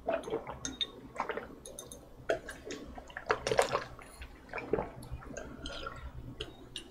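A man drinking water from a glass in gulps: an irregular run of swallows and wet mouth sounds.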